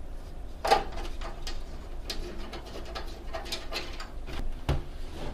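Screwdriver backing screws out of a desktop PC's metal back panel: scattered small clicks and scrapes, the sharpest about a second in.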